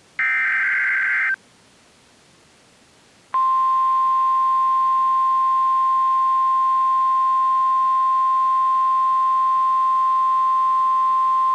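An NOAA Weather Radio emergency alert: a second-long raspy SAME digital data burst, then after a short pause the steady 1050 Hz warning alarm tone, which holds for about eight seconds. The tone signals that a new warning, here a tornado warning, is about to be read.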